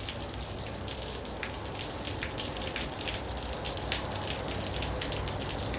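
Water drops splattering onto rocks below a rock face: a steady patter of many irregular drips over a soft hiss.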